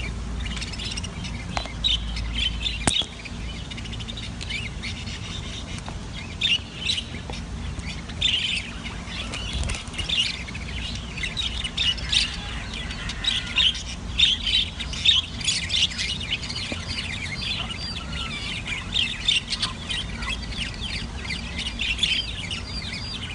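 A group of small pet parrots, budgies or lovebirds, calling together: a constant stream of rapid high chirps and squawks, busiest in the middle stretch.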